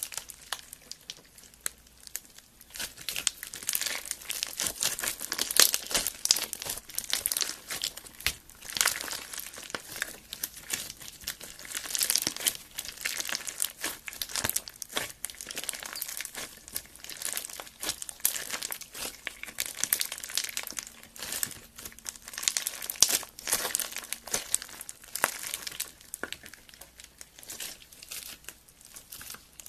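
Clear slime loaded with yellow foam beads being squeezed and stretched by hand, giving a continuous irregular crackling and crunching made of many small pops.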